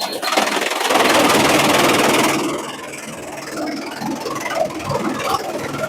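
Bamboo shredder machine running with a steady hum. A loud burst of grinding, chipping noise lasts about two seconds, then it settles back to running with scattered crackling and rattling.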